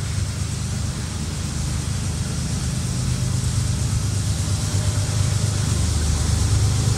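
Low rumble of an approaching diesel freight train, growing steadily louder.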